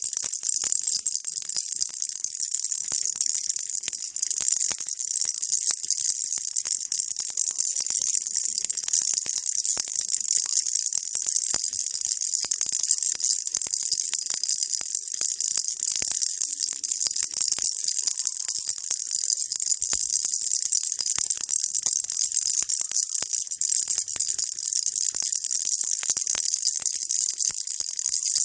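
Baby rattle shaken without pause: a dense, steady, high-pitched rattle.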